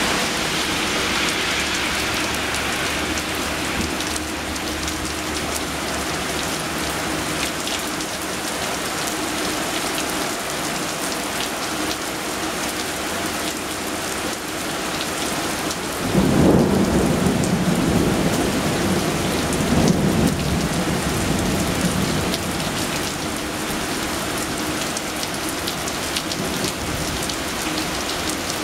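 Heavy rain falling steadily. Just past halfway a low roll of thunder breaks in suddenly and rumbles for about six seconds, swelling again near its end before fading back under the rain.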